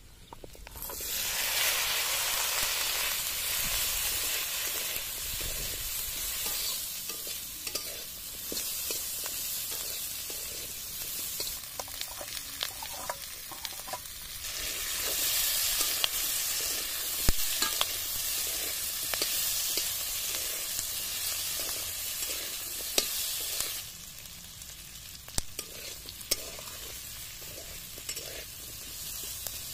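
Onion and green capsicum pieces sizzling as they hit hot oil and spice paste in a metal kadai, with a metal spatula scraping and stirring them. The sizzle surges again about halfway through as carrots go in, and dies down a few seconds before the end.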